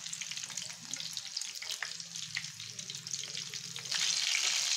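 Chicken leg pieces deep-frying in hot oil in a pan: a steady sizzle with scattered crackles and pops, turning to a louder, more even hiss about four seconds in.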